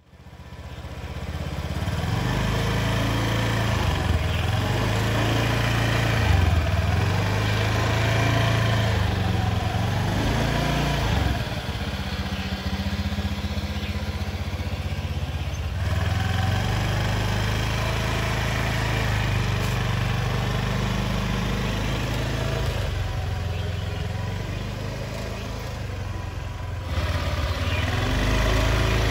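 Honda Vision motor scooter's small single-cylinder four-stroke engine running, with its pitch rising and falling a few times as it is throttled. It fades in over the first second or two.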